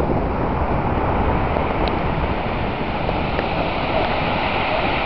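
Ocean surf breaking and washing up a pebble beach: a steady rushing wash of waves.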